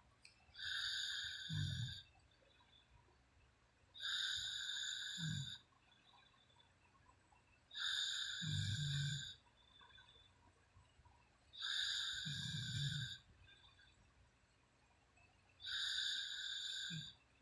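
A woman snoring in her sleep: five snoring breaths about four seconds apart, each lasting a little over a second with a low rattle near its end.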